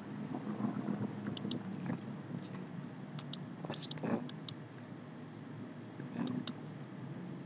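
Computer mouse clicking: several short, sharp clicks, mostly in pairs, as options are picked from a drop-down menu, over a low steady room hum.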